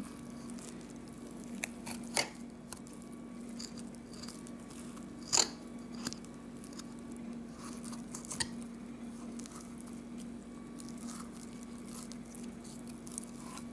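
Thin boning knife working along a rabbit's rib bones, with soft wet squishing and crunching of meat and cartilage and a few short sharp clicks, the loudest about five seconds in. A steady low hum runs underneath.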